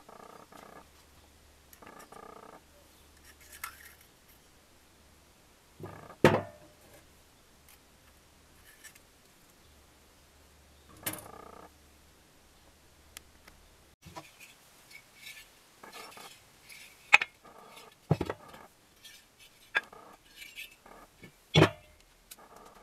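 Metal hand tools and engine parts being picked up and set down on a wooden workbench: scattered clinks and knocks, the loudest about six seconds in and again near the end.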